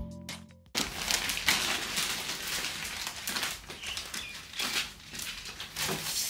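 A plastic shopping bag crinkling and rustling as it is handled, with many irregular crackles. It starts about a second in, just after a short tail of music cuts off.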